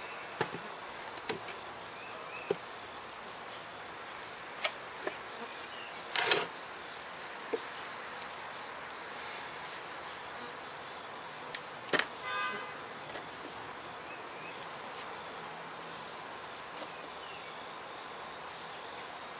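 A chorus of singing insects makes a steady high-pitched drone throughout, with a scatter of short knocks and clicks from wooden hive parts, bricks and a metal hive tool being handled, the clearest about six and twelve seconds in.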